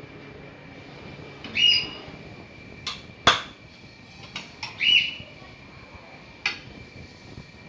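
Opak gulung (rolled cracker) machine running: a steady high whine, with two short rising squeals and several sharp clicks.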